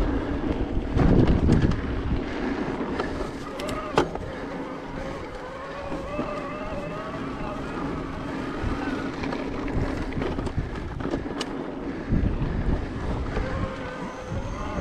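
Trek Powerfly 5 e-mountain bike's Bosch mid-drive motor whining as it assists pedalling, its pitch wavering up and down with cadence, over wind buffeting the chest-mounted microphone and tyres rolling on a dirt singletrack. A few sharp knocks and rattles from bumps in the trail, the loudest about four seconds in.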